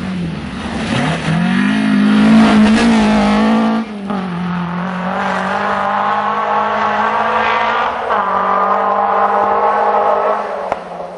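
Historic rally car's engine at full throttle, its pitch climbing for the first couple of seconds, dropping sharply about four seconds in, then holding high revs before fading near the end.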